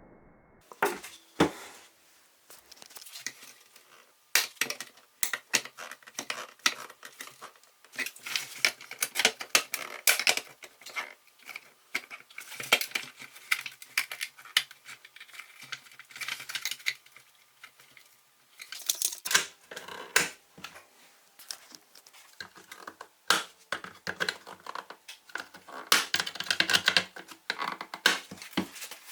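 Irregular light metallic clinks, taps and scrapes as the parts of a Soviet steel toy bulldozer are handled and taken apart, with busier clusters of clatter now and then.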